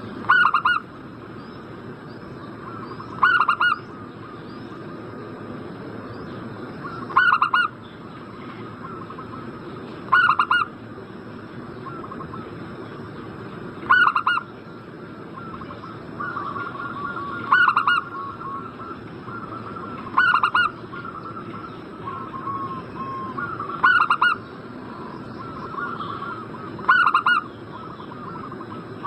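Zebra doves (perkutut) cooing: a short, loud coo repeats every three to four seconds, nine times in all. From about halfway on, softer rapid cooing fills the gaps between them.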